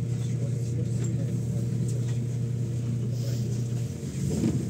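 Interior drone of a MAZ-107 city bus, its engine running with a steady low hum as the bus moves slowly. About four seconds in, the hum briefly dips, then comes back.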